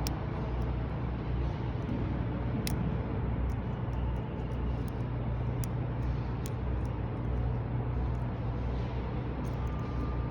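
Faint, scattered clicks of a hook pick and tension wrench working the pins of a Master Lock padlock, over a steady low rumble.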